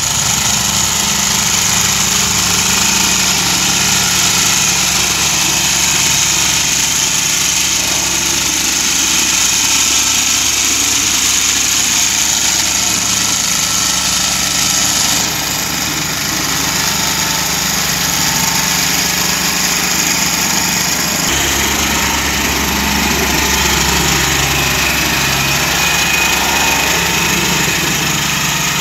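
Vibratory plate compactor's small engine running steadily as its plate shakes across freshly laid interlocking concrete paver blocks to bed them in. The tone changes abruptly twice, about halfway and two-thirds of the way through.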